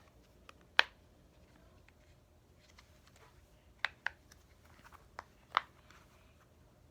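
A handful of short, light clicks and taps, irregularly spaced, from a plastic fidget case being handled.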